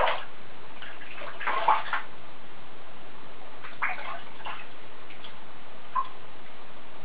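Steady rush of a hand shower running into shallow bathwater, with a few small splashes as a chihuahua puppy is rinsed by hand: about a second and a half in, around four seconds in, and once near six seconds.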